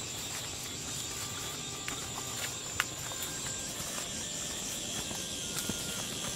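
Insects chirring in a steady high drone, with scattered light clicks and taps from footsteps on a dirt path through undergrowth; the sharpest tap comes a little under three seconds in.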